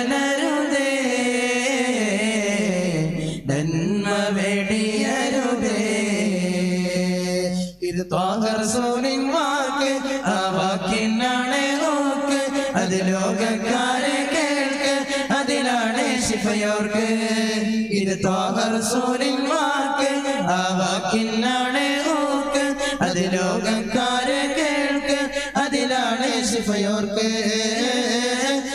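A solo voice singing an Islamic devotional song in long, gliding, drawn-out melodic phrases, with short breaks for breath about three and a half and eight seconds in.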